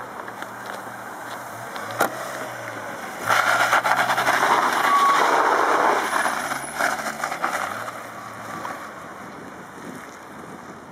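Ford Mondeo estate idling, with a sharp knock about two seconds in as a door shuts. About three seconds in the engine revs and the car pulls away hard with a sudden loud rush of spinning-tyre noise, which fades over the next few seconds as it drives off.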